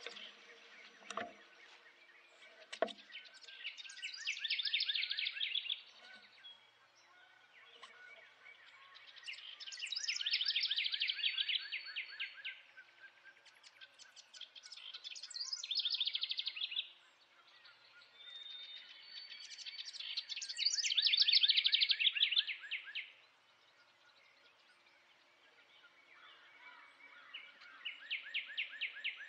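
A songbird singing a fast trilled song of two to three seconds, repeated five times with a few seconds between songs. Two short knocks sound in the first few seconds.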